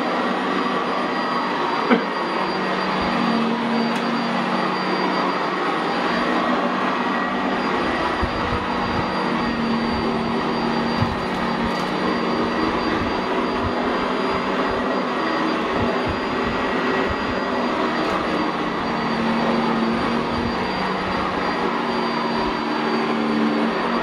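Sanitaire SC679J upright commercial vacuum cleaner running steadily with a Vibra-Groomer II brush roll, pushed back and forth over carpet. Its motor keeps a steady whine over the rush of air, with a low uneven rumble from the strokes joining after a few seconds.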